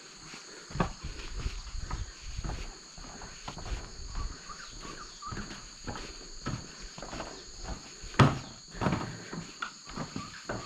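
Footsteps knocking irregularly on the wooden plank deck of a suspension bridge, with one louder knock about eight seconds in, over a steady high-pitched chorus of insects in the surrounding forest.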